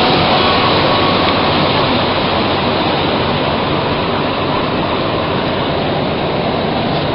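Bombardier MR-73 metro train heard from inside the car: a loud, steady rush of its rubber tyres on the track and running gear as it slows into a station, easing down a little, with a faint motor whine near the start.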